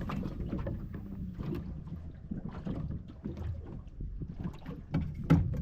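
Wind buffeting the microphone over a steady low rumble on a small boat at sea, with light scattered ticks and one sharp knock near the end.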